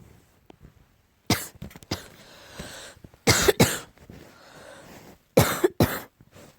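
Repeated harsh coughing in short fits: a cough about a second in, then pairs of coughs around three seconds and again near five and a half seconds, with a rasping breath in between. The coughing is put down to allergy.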